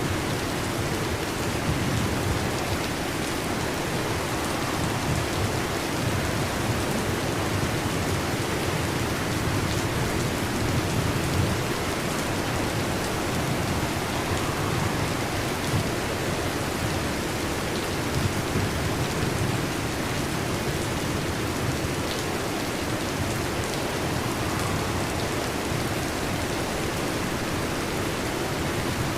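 Heavy rain falling steadily, with a low rumble of thunder underneath that rises and falls.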